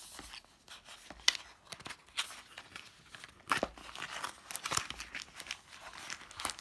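White cardboard box and inserts being handled and opened: scattered rustles, scrapes and sharp snaps of card flaps, the loudest about a second in and again past the middle.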